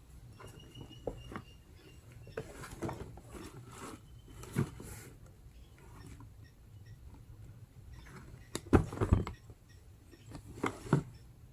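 Hands handling a heat gun's box and packaging: scattered faint clicks and rustles, with a few louder knocks about nine seconds in and again near the end.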